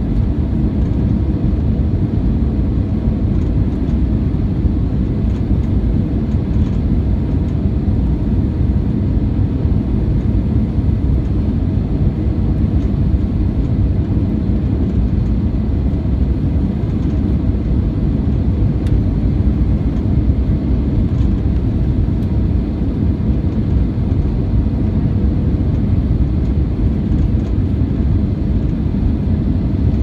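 Cabin noise inside an Airbus A320, heard from a forward window seat: a steady low rumble of the jet engines and airflow with no sudden changes.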